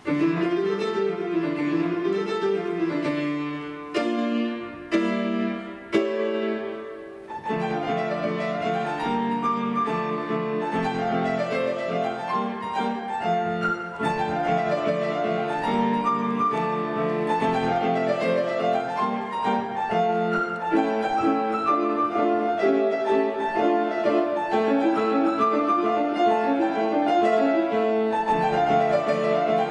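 Grand piano played solo: a classical piece begins at the start with a flowing figure, then a few separate struck chords that ring and die away. From about a quarter of the way in, a steady run of notes follows, with rising-and-falling figures repeating in the upper part.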